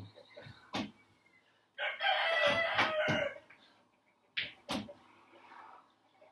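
A rooster crows once, starting about two seconds in and lasting about a second and a half. Around it come a few short thuds of hands and feet landing on a wooden porch deck during burpees.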